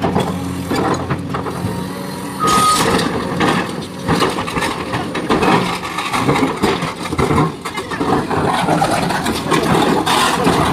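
Excavator's diesel engine running under load while rocks scrape and clatter as they are loaded. A short high beep sounds about two and a half seconds in.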